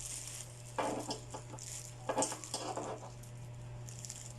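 Rustling and light clattering of household items being handled and unpacked from a box, in two short bursts, over a steady low hum.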